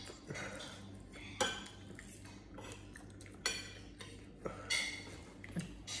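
Metal spoon and fork clinking and scraping on ceramic plates and bowls while eating, several separate short clinks.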